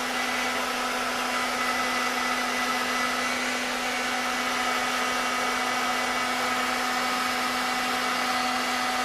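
Hand-held hair dryer running steadily on a hotter setting: a constant rush of air with a low motor hum and a faint whine. It is held over a freshly poured glaze-coat finish to pop the bubbles in it.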